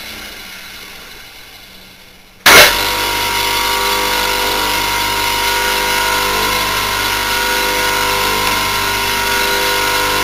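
Western Electric 1.1 kW, 2780 rpm capacitor-run single-phase motor, a heavy pulley on its shaft, fading as it spins down, then switched on again about two and a half seconds in with a sudden loud jolt and running steadily at speed with a hum and a high whine. The owner puts its loudness down to vibration.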